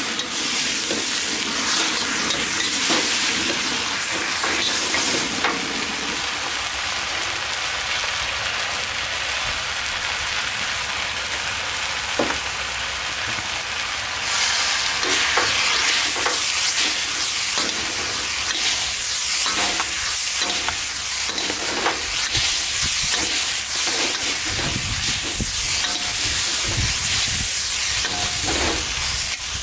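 Chow mein noodles sizzling in a hot seasoned wok while being tossed and stirred with a wok spatula and tongs: a continuous frying hiss broken by frequent short scrapes against the wok. It grows a little louder about halfway through, and a low rumble joins in near the end.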